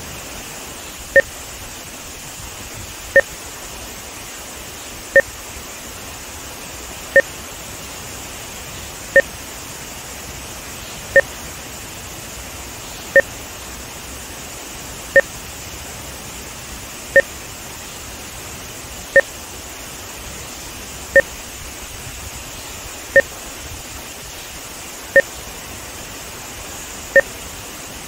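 Short two-tone test beeps, one every two seconds, inserted as audio-video sync markers for VideoMultimeter. Beneath them runs the steady rush of water from the rapids and the dam spillway.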